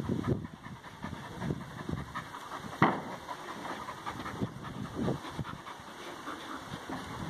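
Two Belgian Malinois playing over a toy, making short, irregular low dog sounds, with one sharp, louder sound a little under three seconds in.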